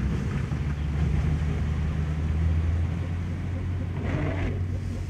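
Vehicle engine running at a steady low drone, heard from inside the cabin while driving, with tyre and rain noise from the wet road.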